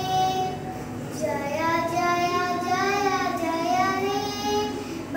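A young girl singing, holding long drawn-out notes whose pitch wavers slowly, with a short break for breath about a second in.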